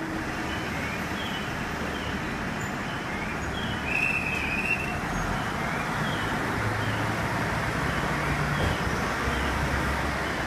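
KiHa 48 diesel railcar's engine running at the platform, its low hum growing in the last few seconds as the railcar starts to pull away. A short high whistling chirp sounds about four seconds in.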